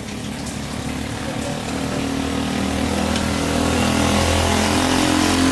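A vehicle engine running, growing steadily louder.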